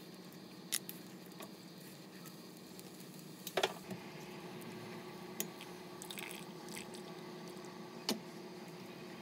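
Milk tea coming up to a simmer in a stainless steel saucepan on a gas stove: a faint steady hum with a few short clicks and soft pops as bubbles start to rise, the sharpest about three and a half seconds in.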